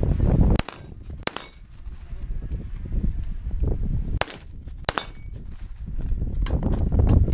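Rifle fired in double taps at a steel target: two pairs of shots, each pair about half a second apart, some with the brief ring of the hit steel after, and more shots near the end. A low rumbling noise fills the gaps between.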